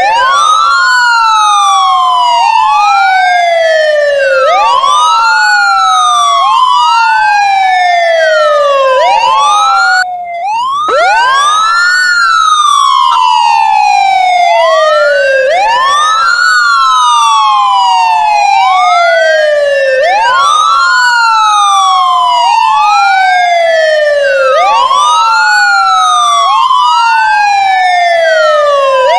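Ambulance siren wailing: a repeating rise and fall in pitch, each cycle a quick climb and a slower fall lasting a few seconds, with two wails overlapping out of step. It cuts out briefly about ten seconds in, then starts again with a low rising sweep.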